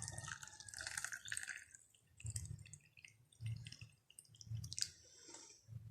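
Hot water being poured into a glass, running for about the first second and a half, then a few faint drips.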